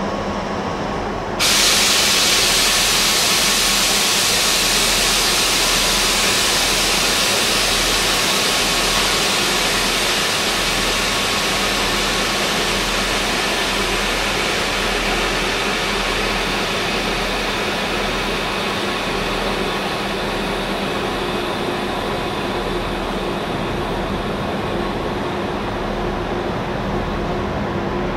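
ICE T electric multiple unit rolling slowly into a station platform, with a steady hum underneath. A loud hiss sets in suddenly about a second and a half in and slowly dies away as the train draws closer.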